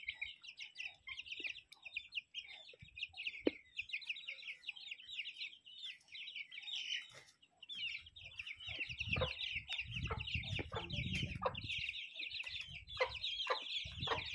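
Young chicks peeping non-stop, a dense stream of quick, high peeps. About halfway through a low rumble and a few low knocks come in under them.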